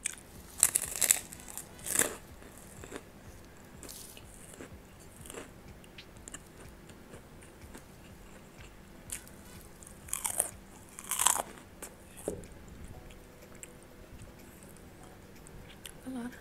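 Close-miked chewing of a mouthful of rice with sambal of fried anchovies and peanuts. Short crunchy bursts come in clusters: about a second in, around four to five seconds, and most strongly around ten to eleven seconds, with quieter chewing between.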